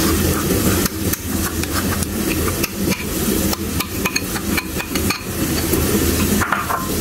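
Thick mayonnaise being scraped out of a glass bowl into a ceramic bowl with a silicone spatula, with scattered short knocks and taps as the glass bowl and spatula bump against the ceramic bowl's rim. A steady low hum runs underneath.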